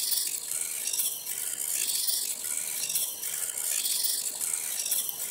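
Two small hobby servos, under Arduino control, steadily whirring as they tilt a LEGO Technic platform round in a continuous circle.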